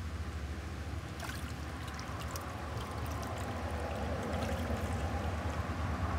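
Small splashes and trickling of water among young koi crowded in a floating net as a hand reaches in among the fish, over a steady low hum. The splashing starts about a second in and grows a little louder toward the end.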